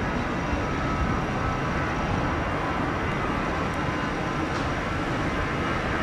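Airbus A321 jet engines running as the airliner rolls along the runway: a steady rumble with a faint high whine.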